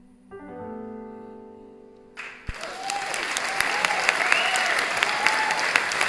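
A final chord on a Roland electric keyboard rings out and fades away; about two seconds in, the audience breaks into loud applause that carries on.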